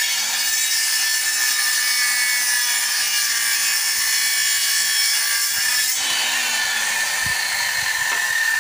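Handheld electric circular saw cutting along a wooden plank: the steady whine of the blade in the wood, changing slightly in tone about six seconds in.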